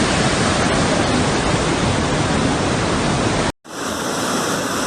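Loud, steady rush of floodwater. It breaks off sharply about three and a half seconds in and picks up again as another stretch of rushing water.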